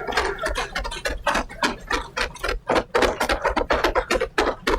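Applause in a parliament chamber: a dense, uneven run of claps and knocks, several a second, as members greet an introduction.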